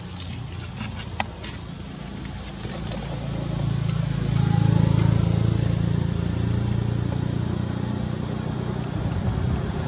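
Low engine rumble of a passing vehicle, swelling to its loudest about halfway through and then slowly fading, over a steady high-pitched hiss, with one sharp click about a second in.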